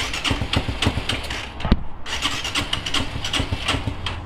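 Honda RS150R single-cylinder four-stroke being cranked on the electric starter in two short attempts, chuffing unevenly at about six puffs a second without catching. The exhaust is leaking badly through rust, and the engine won't start.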